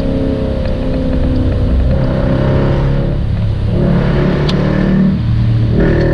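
Jeep Grand Cherokee SRT's V8 with a Borla exhaust, heard from inside the cabin while driving. The engine note shifts in pitch in steps a few times.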